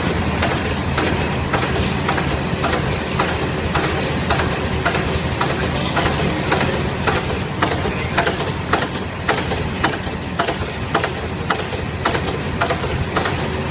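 Yii Lee film laminating machine running: a steady mechanical hum with sharp, regular clicks about twice a second.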